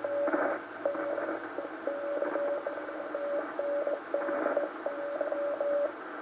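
Morse code (CW) on a Ten-Tec Argonaut V transceiver's small speaker: one steady medium-pitched tone keyed in dots and dashes over hissing band noise, with crackles of static, as a 40-metre station is copied.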